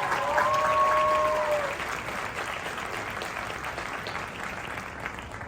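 Audience applauding, with the marching band's last held notes ending about a second and a half in; the clapping slowly dies down.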